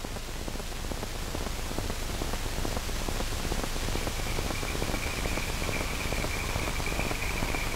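Hiss and dense crackle from a worn old optical film soundtrack, with no speech. About halfway through, a faint, steady high whistle-like tone joins the noise.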